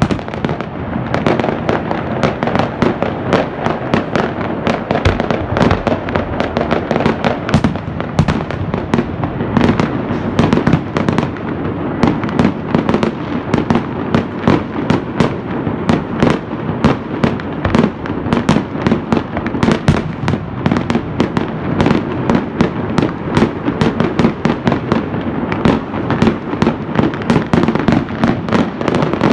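New Year's fireworks going off in a dense, continuous barrage, many bangs a second with no pause, as aerial shells burst over the square.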